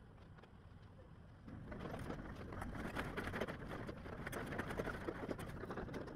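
Excavator demolishing a mobile home, heard faintly: a steady low engine rumble, joined about one and a half seconds in by a dense run of cracks and crunches as debris is broken and moved.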